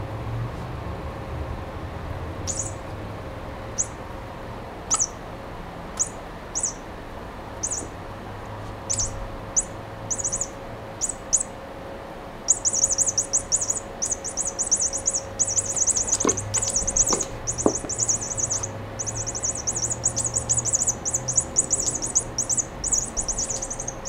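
Toy cat mouse chirping like a bird in short, high chirps, one every second or so at first. About halfway through it breaks into rapid, chattering runs of chirps that go on almost without a break.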